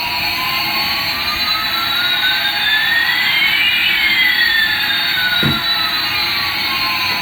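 A toy's electronic jet-engine sound effect: a steady hissing whoosh with one whistling tone rising and another falling, crossing midway. A short low thump comes about five and a half seconds in.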